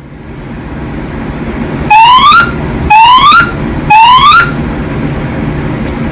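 Fire alarm evacuation tone from a voice-evacuation speaker: three rising whoop sweeps, each about half a second long and a second apart, starting about two seconds in. This is the temporal-three evacuation pattern that sounds between the recorded messages. A steady low hum runs underneath.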